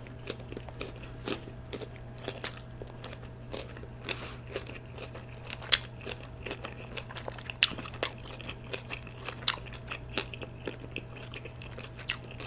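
Close-miked chewing of a Chick-fil-A spicy fried chicken sandwich: irregular wet mouth smacks and crunches of the breading, a few much louder than the rest.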